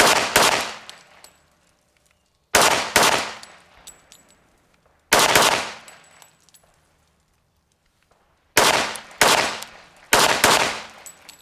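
Sig Sauer P320 Nitron .45 ACP pistol firing about ten shots in pairs, with a pause of a second or two between pairs.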